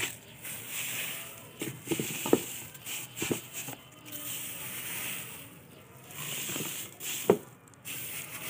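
Dry, papery garlic skins rustling and crackling as a hand sweeps and scoops them across a table into a plastic container, in several bursts with a few sharper snaps.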